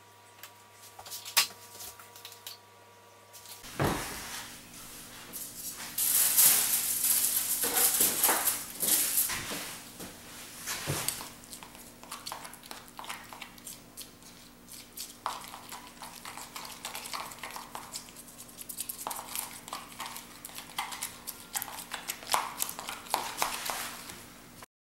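A knife stirring and scraping hair-colour cream and developer in a plastic bowl, with irregular scrapes and clinks, heaviest about six to ten seconds in.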